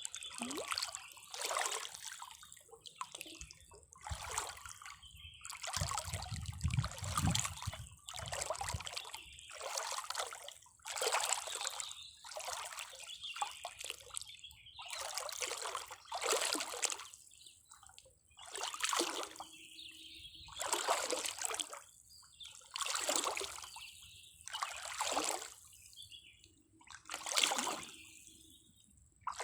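Water splashing and sloshing in repeated bursts, about one every two seconds, with a brief low rumble some six seconds in.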